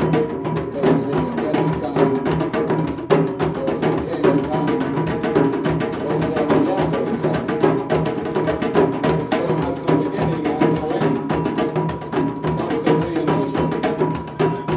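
Live drum performance: a dense, fast run of drum strikes keeping up a steady rhythm, with a thin steady tone running under it.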